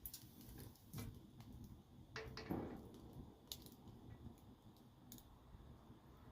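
Fireplace log fire crackling softly with scattered irregular pops and snaps, a louder crackle about two seconds in.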